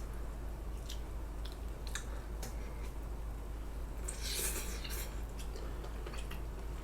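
A person chewing a bite of samgyetang chicken drumstick, with scattered soft, wet mouth clicks.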